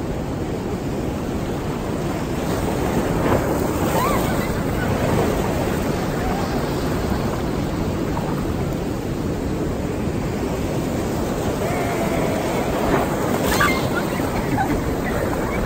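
Ocean surf breaking and washing up over a sandy beach in a continuous loud rush.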